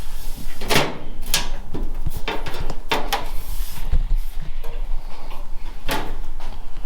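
Sheet-metal wheel tub panels being handled and set about: about five sharp knocks and clatters, with rustling scrapes between them.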